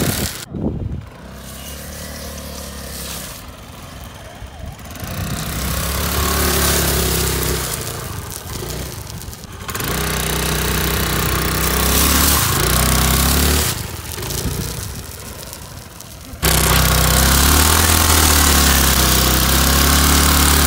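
Hero Maestro scooter engine revved hard in repeated surges while its cello-tape-wrapped rear tyre spins on concrete, with a steady hiss from the spinning tyre. The revs drop back briefly several times, then about sixteen seconds in the engine jumps to a loud, steady high rev.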